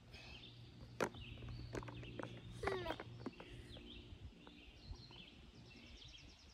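Faint outdoor ambience: birds chirping, a steady low hum, and a few sharp clicks, the strongest about a second in.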